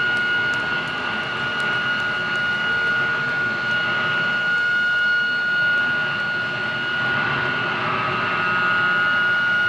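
Electric guitar amplifier feedback ringing out after the song: a steady high whine over a wash of amp noise, with a second, slightly lower pitch joining near the end.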